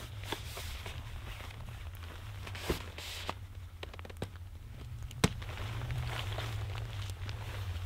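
Pitching a small tent: tent fabric rustling, footsteps and shuffling on grass and leaf litter, and scattered sharp clicks and taps as the shock-corded tent pole is handled and fitted, the loudest click about five seconds in. A steady low rumble runs underneath.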